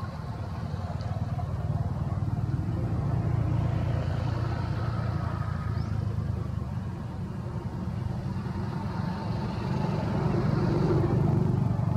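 Low engine rumble that swells and fades twice.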